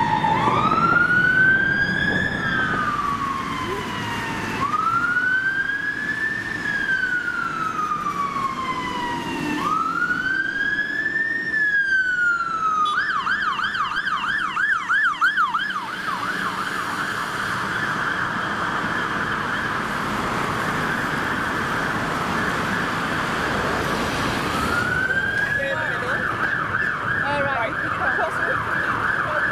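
Fire engine siren: a slow rising-and-falling wail, about three long sweeps, that switches about halfway to a fast yelp, then a dense, steadier tone, and rises into a fast yelp again near the end. Road traffic rumbles underneath.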